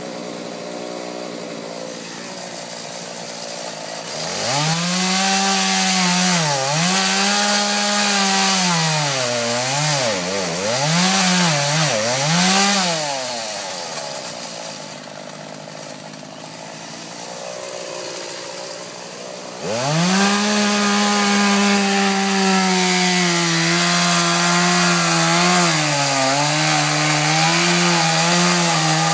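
Gas chainsaw idling, then revved to full throttle about four seconds in, its pitch dipping and recovering several times as it is worked. It drops back to idle around the middle, then revs up again at about two-thirds of the way in and runs at high speed to the end, sagging slightly in pitch as the chain cuts into a tree stump.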